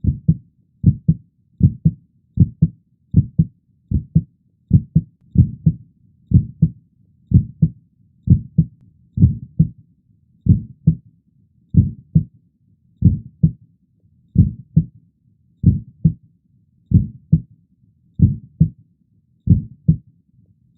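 Heartbeat sound effect: paired lub-dub thumps repeating a little over once a second, the beat slowing slightly toward the end before it stops.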